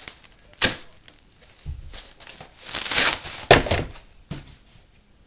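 Plastic packaging being cut with a knife and torn open: crinkling and tearing, with a sharp click under a second in, a noisy rip around three seconds in and a heavier knock about three and a half seconds in.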